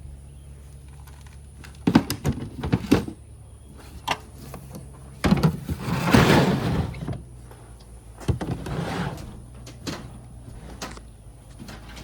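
Things being rummaged through and handled: a few knocks and clatters about two seconds in, then a longer rustling scrape about five to seven seconds in and a shorter one near nine seconds, over a steady low hum.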